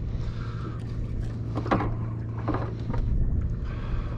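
Steady low hum of a boat engine, with a couple of brief noises in the middle.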